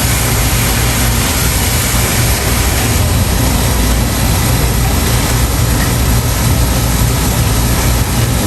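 Outdoor air-conditioner condenser unit running, a steady low hum under an even rushing noise, as it is hosed down with water.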